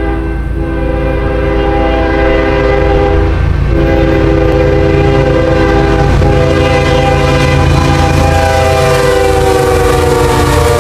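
Union Pacific diesel locomotive's multi-chime air horn sounding several long blasts with brief breaks between them, over the low rumble of the approaching train, which grows louder. The horn's pitch falls slightly near the end as the lead locomotive passes.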